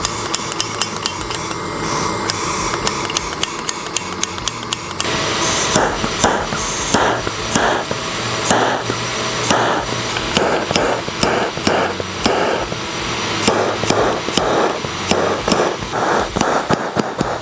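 Handheld gas torch burning with a steady hiss as it scorches wood. From about five seconds in, a regular knocking beat of two to three strikes a second runs over it.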